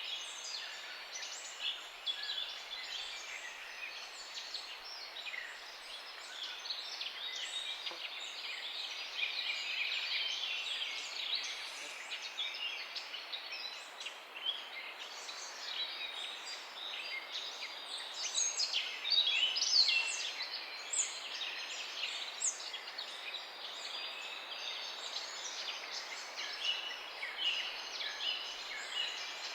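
Dawn chorus: many songbirds chirping and trilling at once, a dense, continuous overlapping chatter of short high notes.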